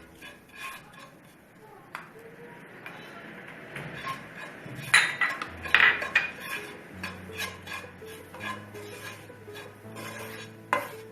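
Spoon stirring and scraping dry spice powders around a hot pan, with a run of louder scrapes and clinks about five to six seconds in. The chilli and coriander powders and whole spices are being dry-roasted in the pan's leftover heat with the stove off.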